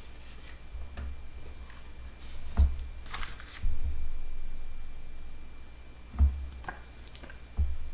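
Desk handling noise while writing with a stylus on a drawing tablet: a few dull low thumps and a short scratchy rustle about three seconds in.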